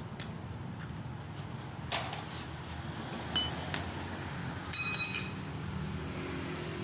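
Metal tools and parts clinking during ball-joint work: a couple of light clicks, then a loud ringing metal clink about five seconds in, over a steady low hum.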